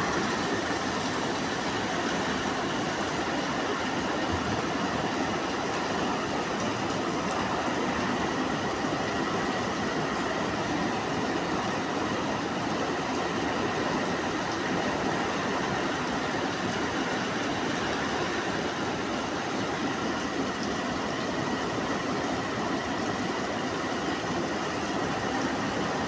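Heavy rainstorm with strong wind: a steady, even rush of rain and wind.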